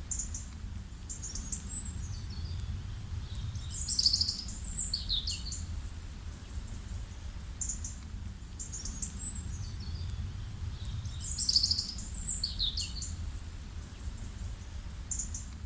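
Songbird singing: the same loud, sweeping phrase twice, about eight seconds apart, with short chirps in between, over a steady low rumble.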